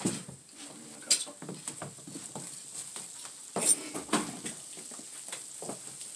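Tableware clattering on a table as a glass baking dish is set down: a sharp clink about a second in, and a louder cluster of knocks and clinks a little past the middle.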